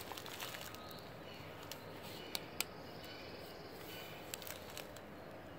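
Quiet outdoor background with faint high chirping and two small sharp clicks about halfway through.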